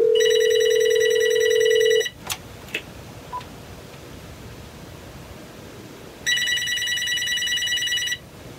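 GE (Atlinks) 27910GE1-B 2.4 GHz cordless phone ringing with an electronic warbling ringtone. There are two rings of about two seconds each, about four seconds apart. A steady lower tone sounds under the first ring.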